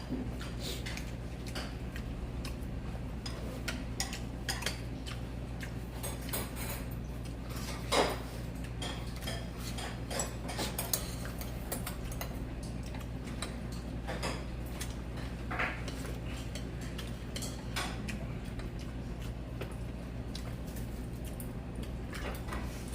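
Kitchen utensils and dishes clinking and knocking at irregular moments, the loudest clink about eight seconds in, over a steady low hum.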